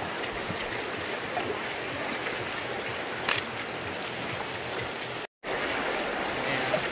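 Steady rush of the shallow Virgin River flowing over stones, with one light click about three seconds in. The sound cuts out for an instant a little past five seconds and comes back slightly louder.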